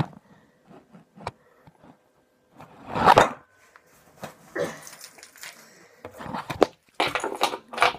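Rustling and scattered knocks from rummaging through a coat pocket, with a louder rustle about three seconds in.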